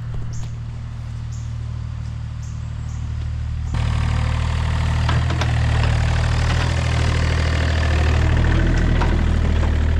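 Excavator's diesel engine running steadily; about four seconds in it suddenly gets louder, with more clatter and noise over the low engine note.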